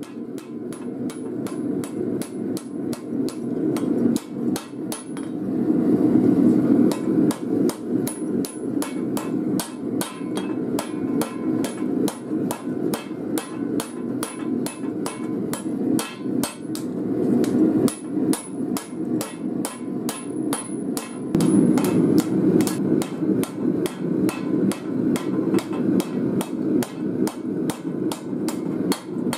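Hand hammer striking red-hot file steel on an anvil in a steady rhythm of about three blows a second, drawing the blade thinner and shaping its tip. A steady rush of the burning gas forge runs underneath.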